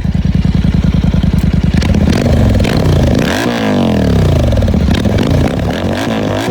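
Royal Enfield GT 650's parallel-twin engine running with its silencer removed: a fast, loud idle for about two seconds, then revved up and let fall back several times.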